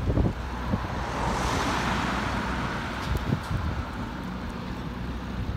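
Road traffic: a vehicle passes close by, its tyre and engine noise swelling about a second in and fading by about three seconds. Wind buffets the microphone, with gusts at the start and again about three seconds in.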